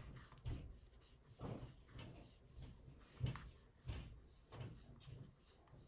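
Knife blade shaving sprue nubs off plastic model-kit parts: a series of faint, irregular scrapes and soft knocks, roughly one every half second to second.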